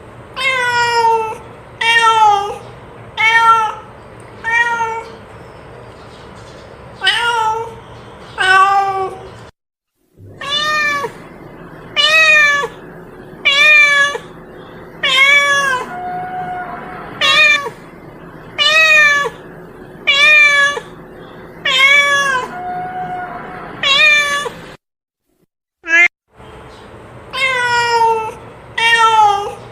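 Domestic cat meowing over and over, about one meow every second or so, each call dropping in pitch at its end; the sound cuts out completely twice for a moment. The uploader takes these for a hungry cat calling its companion.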